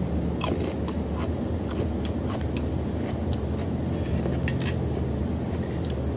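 Crisp clicks and crunches of someone chewing raw vegetables close to the microphone, over a steady low machine hum.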